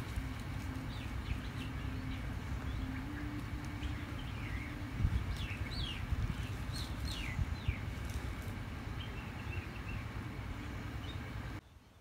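Outdoor ambience with birds chirping, a run of quick falling chirps in the middle, over a steady low rumble and a faint hum.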